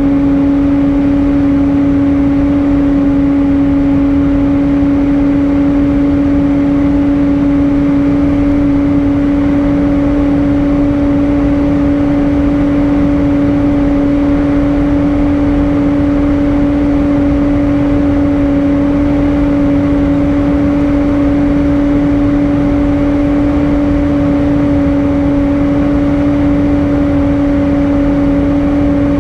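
Airbus A320 cabin noise in flight: a steady rush of airflow and jet-engine hum with a constant low drone.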